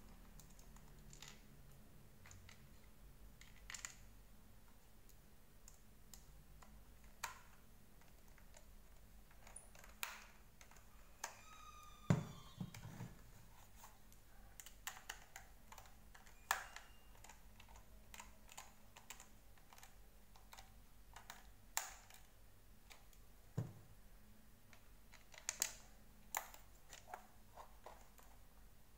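Scattered faint plastic clicks and taps from the white plastic housing of a Deerma VC25 stick vacuum being handled and its screws tightened with a small precision screwdriver. A short creak and a louder knock come about twelve seconds in.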